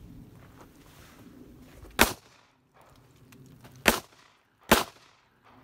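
Three handgun shots: one about two seconds in, then two more near the end, less than a second apart.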